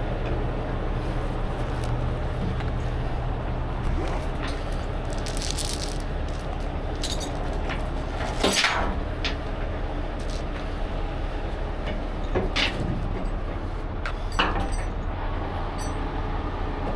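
Heavy tow truck's diesel engine running steadily, with a few sharp metal clanks: the loudest about halfway through, two more near the end.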